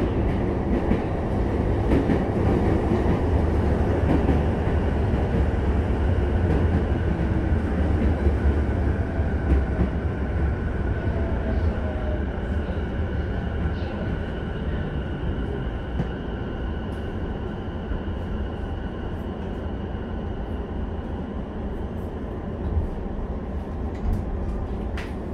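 Running noise inside a Sotetsu 11000 series electric train car: a heavy rumble of wheels on rail, with the thin steady whine of its Mitsubishi IGBT-VVVF traction equipment for a few seconds mid-way and a brief falling tone. The noise eases off over the second half as the train slows into a station.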